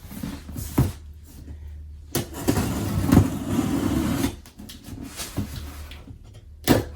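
Cardboard shipping box being handled and opened: several knocks and thumps, with a longer stretch of scraping and rustling in the middle.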